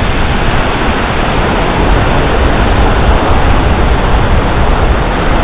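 Wind buffeting the microphone over the steady rush of ocean surf on an open beach.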